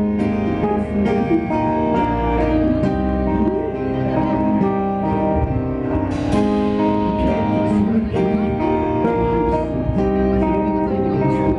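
Live rock band playing: electric guitar notes held and picked over drums, with a loud crash about six seconds in.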